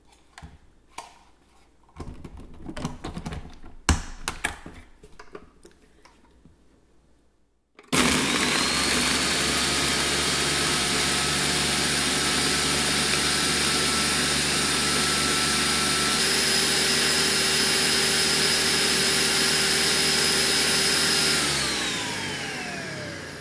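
A few clicks and knocks of the blender lid and jar being handled. Then a Ninja Professional 1000-watt blender starts suddenly and runs steadily, crushing ice into the cream and lemon mixture. Near the end it winds down, falling in pitch.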